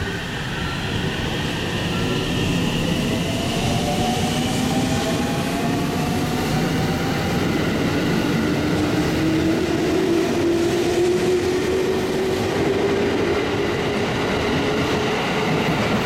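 JR Central 313 series and 211 series electric multiple unit accelerating away from the platform, its cars passing close by. Electric traction motor whine rises steadily in pitch over rumbling wheel and rail noise.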